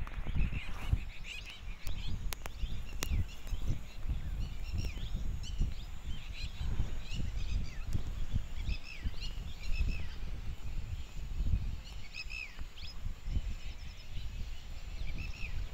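Many birds chirping with short, scattered calls throughout, over an uneven low rumble. A couple of sharp clicks come about two and three seconds in.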